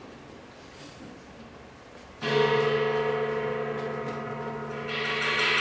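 A quiet hall for about two seconds, then a gong is struck and rings on with a steady, many-toned sound that swells louder and brighter near the end.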